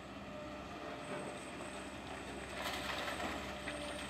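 Link-Belt demolition excavator's diesel engine running steadily, with a short rush of crunching, falling debris about two-thirds of the way through as its long-reach arm works the rubble, followed by a few small knocks.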